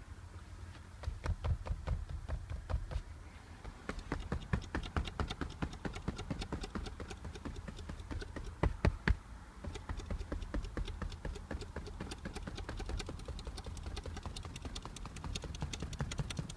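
Audi A4 B8 passenger seat rattling under the headrest: rapid, irregular clicking and tapping, loudest about halfway through, over the low rumble of the car being driven.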